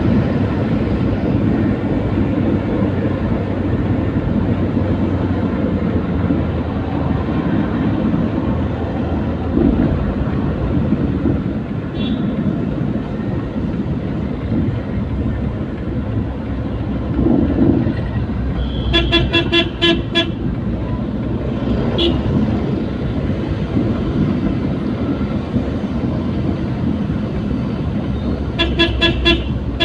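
Steady engine and road rumble of a vehicle moving through traffic. Partway through, a horn sounds in a rapid string of short beeps, then a single short toot, then another rapid string of beeps near the end.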